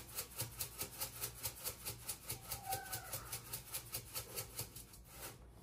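Hand pepper mill grinding black peppercorns: a quick, even, gritty crunching at about five strokes a second that stops about five seconds in.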